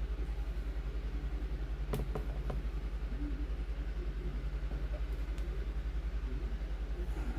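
Small air compressor running with a rapid, steady pulsing hum while inflating a model airplane tire, with a short knock about two seconds in.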